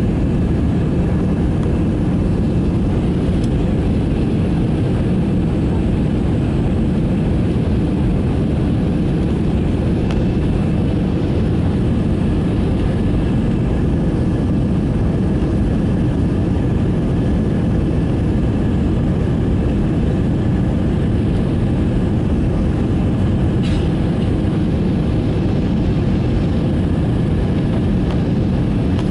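Airbus A321 cabin noise in flight shortly after takeoff: the jet engines and rushing air heard from a window seat over the wing, a steady low rumble with a faint steady whine above it.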